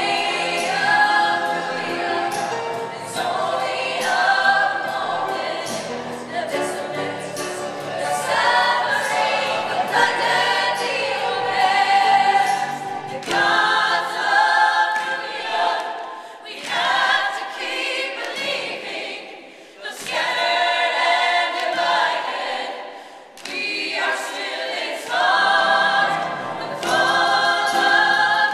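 A mixed chorus of young voices singing a musical-theatre ensemble number, with a female lead voice among them. The phrases break off briefly several times in the second half.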